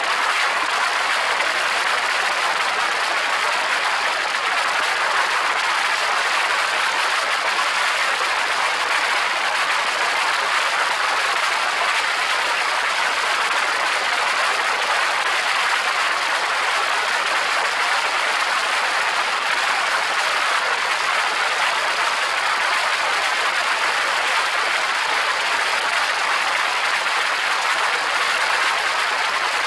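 Steady rushing of wind and engine noise from an open-cockpit, twin-propeller light aircraft in flight, with the airflow blowing over the exposed microphone. It holds an even level without change.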